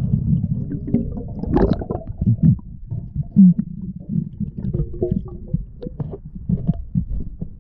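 Muffled low rumble with many scattered knocks and clicks, as heard by an action camera in its waterproof housing underwater.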